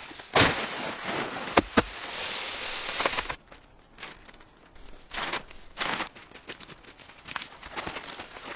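Rustling and crackling of dry material being handled, with a few sharp snaps; it pauses briefly about three and a half seconds in, then starts again in shorter spells.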